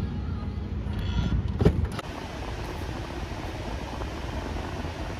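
A car driving, a steady low rumble of engine and road noise, with a couple of short clicks just under two seconds in.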